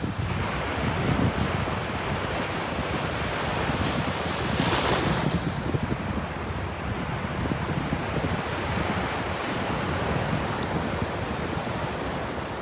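Ocean surf: a steady rush of waves washing on the shore, with a brighter hiss of a wave breaking about five seconds in. A low rumble of wind on the microphone runs underneath.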